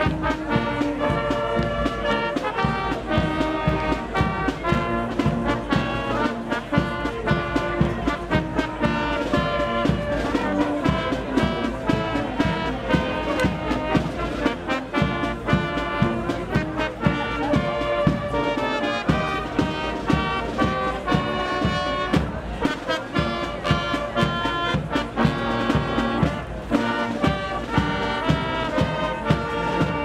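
Brass band playing a tune with a steady beat.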